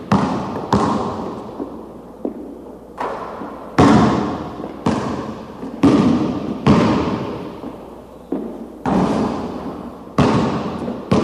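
Basketball bounced on a hardwood gym floor, about one bounce a second at an uneven pace, each bounce echoing and fading slowly in an empty gym.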